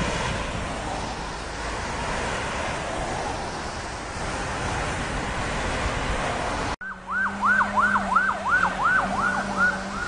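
A vehicle passing on a wet road with tyre hiss. About two-thirds of the way in, an abrupt cut leads to an emergency vehicle's siren yelping, rising and falling about two and a half times a second, over a steady low hum.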